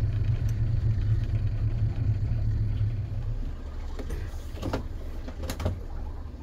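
Yamaha outboard motor running the boat under way, a steady low drone that drops away about halfway through as it is throttled back. A few knocks follow near the end.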